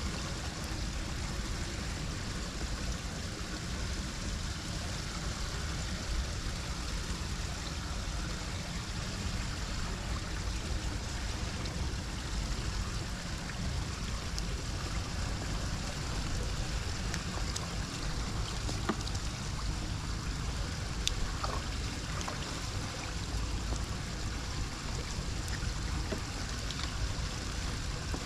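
Floodwater flowing steadily into a storm drain, with a few faint clicks near the middle and end.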